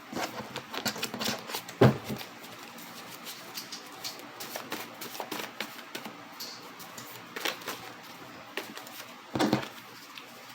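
Tarot cards being shuffled and handled, a quick run of small crisp clicks and flicks, with two louder knocks on the table about two seconds in and near the end.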